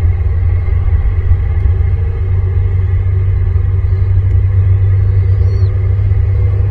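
Steady low wind rumble buffeting the microphone, with a faint short high call that glides up and down about five seconds in.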